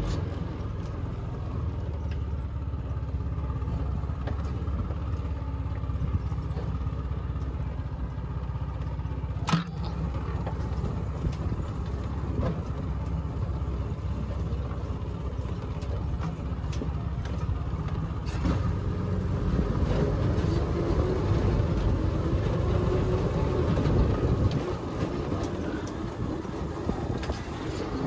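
Small single-cylinder go-kart engine running steadily on a compact off-road buggy as it rolls downhill, with the loose cargo bed rattling. A single sharp knock comes about nine seconds in.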